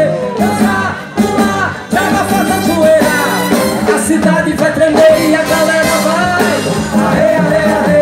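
Live band playing upbeat Brazilian carnival music: drum kit, electric bass, electric guitars and horns, with a singer's line over them. The music drops back briefly between one and two seconds in, then comes back in full.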